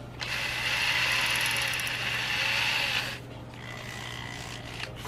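Power drill running steadily with a high motor whine for about three seconds, then stopping.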